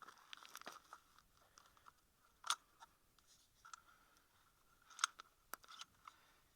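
Quiet clicks and scrapes of a Savage Model 64 .22 rifle being handled to clear a jam: a failure to feed from its 20-round magazine. A few sharper metallic clicks stand out about two and a half seconds in and twice around five seconds in.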